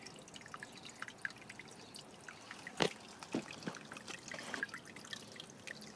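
Faint trickling and dripping of water slowly filling a concrete garden canal, with scattered small plinks and one sharper click about three seconds in.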